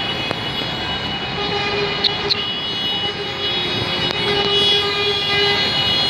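A long, steady horn-like tone held for about four seconds over a continuous rushing background noise, with two short sharp ticks near the middle.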